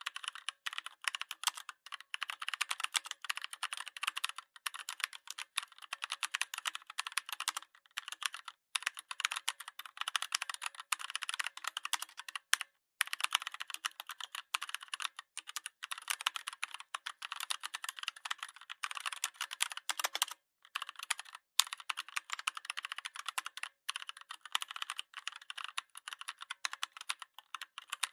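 Rapid, continuous clicking like fast keyboard typing, with a few brief breaks.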